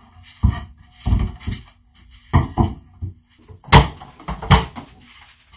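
A series of knocks and thumps of wood and tools being handled on a plywood workbench: boards shifted and a corded circular saw set down, about eight separate bumps with the loudest about two-thirds of the way in.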